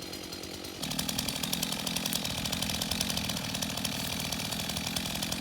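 Stihl MS 251 two-stroke chainsaw idling, then about a second in opening up to full throttle and running steadily at high speed, cutting through the base of a cherry tree.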